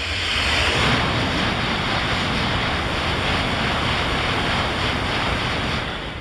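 Coupled E6 and E5 shinkansen train passing through the station at high speed without stopping: a loud, even rushing noise that builds over the first second, holds steady while the cars go by, then falls away near the end.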